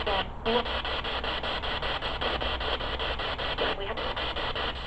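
Spirit box sweeping rapidly through radio stations: a steady hiss of radio static chopped into regular pulses about eight times a second.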